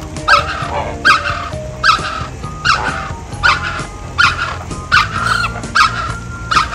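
A flock of greater flamingos calling: a steady run of short, loud honks, about one to two a second, with lower steady tones underneath.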